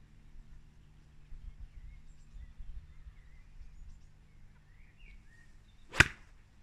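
A 52-degree wedge striking a golf ball off a tee mat: one sharp click about six seconds in, the loudest sound here, on a shot the golfer feels was a little chunked. Faint bird chirps before it.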